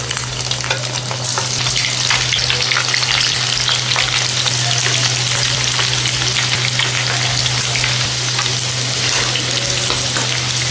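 Lumps of egg-and-flour pakora batter deep-frying in well-heated oil in a kadai: a dense, steady sizzle and crackle that grows fuller about a second in as more batter goes into the oil.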